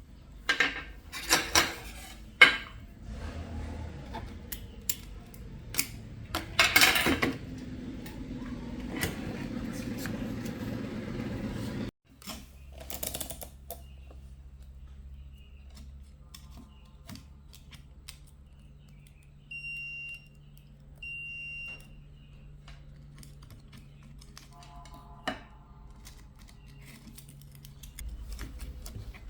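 Clicks, knocks and clatter of small parts and tools being handled. After a cut, a steady low electrical hum with two short high electronic beeps about twenty seconds in.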